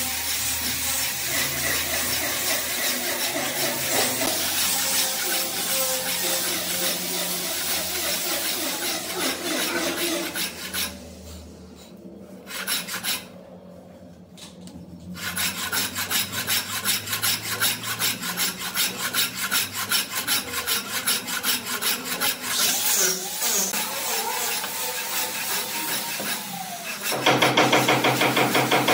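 A hand tool rasping and rubbing across wood in quick, repeated strokes. It stops twice briefly about halfway through, then comes back louder and faster near the end.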